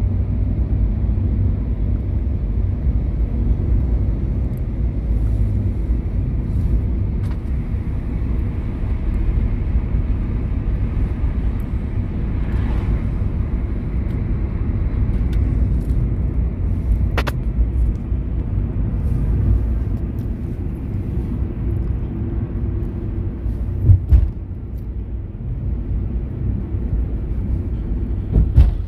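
Road and engine noise heard from inside a moving car: a steady low rumble. A sharp click comes a little past halfway, and a loud brief thump comes late on.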